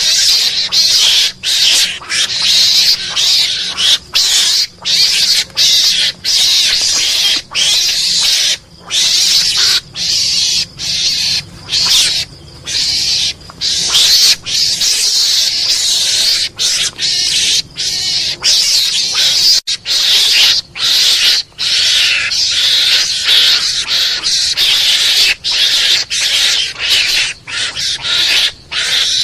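Mongoose call used as a hunting lure: a harsh, hissing, rasping chatter, nearly continuous, broken by short irregular gaps.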